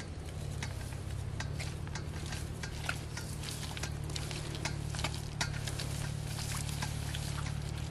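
Irregular small clicks, patters and rustles of people walking barefoot through grass and over mud, over a steady low hum.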